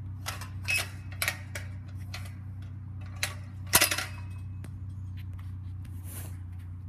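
Chain-link fence clinking and rattling against its metal post: a handful of short sharp clinks in the first four seconds, the loudest just before four seconds in, over a steady low hum.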